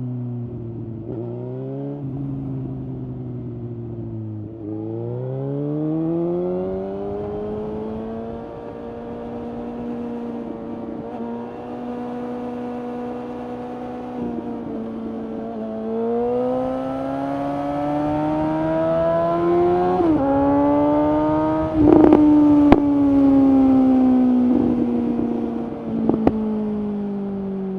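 Suzuki GSX-S750's inline-four running through a Yoshimura SQ11 exhaust with the dB killer removed and the catalyst deleted, while riding: the revs fall and climb several times, rise hard to a gear change with a sudden drop in pitch, climb again and then fall off as the throttle closes. A few loud sharp cracks come from the exhaust as the revs start to fall, about two-thirds of the way through, and once more near the end.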